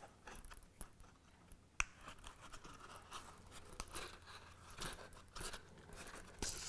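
Faint rustle and rasp of waxed thread being drawn through the stitching holes of a leather case during hand saddle stitching, with several light handling clicks, the sharpest about two seconds in.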